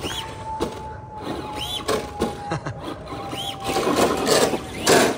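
Traxxas Bigfoot RC monster truck's brushed electric motor whining steadily as the truck is driven, with scattered knocks from the chassis and tyres and a rougher, louder stretch near the end.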